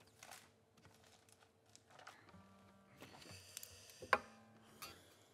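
Acoustic guitar: a few strings plucked singly and left to ring, the loudest about four seconds in, after some soft knocks of the instrument being handled.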